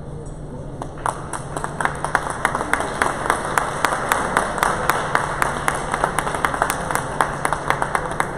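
Spectators clapping, starting about a second in and going on steadily, with single claps standing out at roughly four a second.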